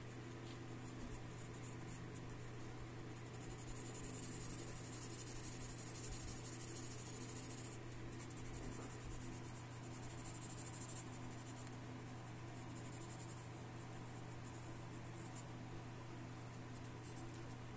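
Graphite pencil shading on drawing paper: rapid, fine scratchy strokes that come in stretches, most intense from about four to eight seconds in. A steady low hum runs underneath.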